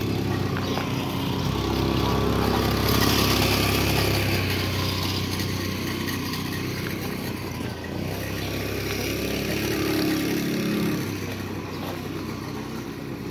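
An engine running steadily, swelling about two to four seconds in and again near ten seconds.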